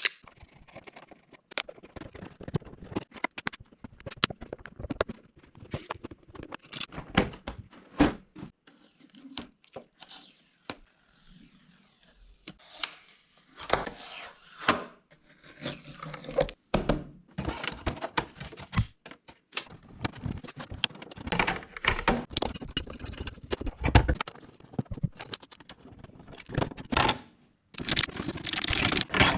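Plastic fairing panels of a Honda CBR600F being unclipped and pulled off: irregular clicks and knocks of fasteners and hard plastic, with stretches of plastic scraping and small metal parts clinking.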